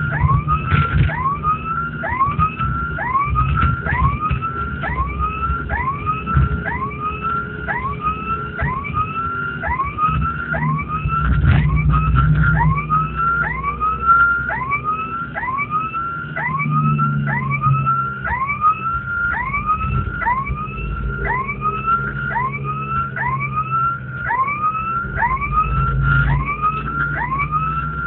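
Police vehicle siren sounding a fast repeating rising whoop, about four every three seconds, over engine and road rumble heard from inside a moving vehicle.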